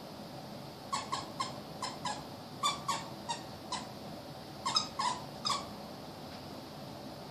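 Norwich terrier puppies whimpering in short, high squeaks, about a dozen of them in quick bunches, stopping a little past the middle.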